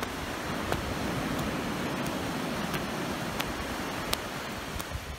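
Steady rush of surf and wind on the microphone at the beach, with a few faint ticks.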